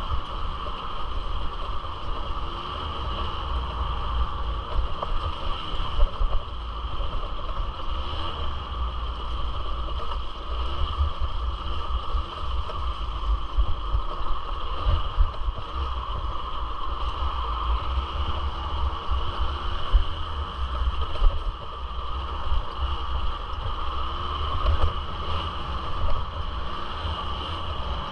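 Suzuki LT80 ATV's small two-stroke single-cylinder engine running steadily, with low buffeting on the microphone underneath.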